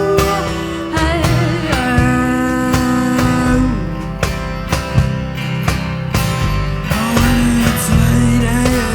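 A band playing an instrumental break: a guitar carries held notes that bend in pitch, over bass and drums.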